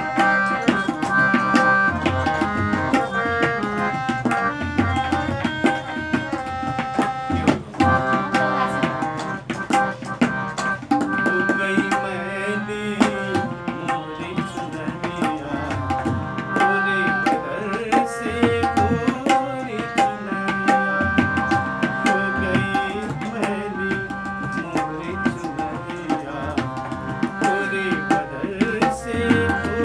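Tabla playing a steady rhythmic accompaniment under a harmonium holding chords and melody, for a light-classical Hindi song. From about ten seconds in, a man's voice sings the melody in bending phrases over them.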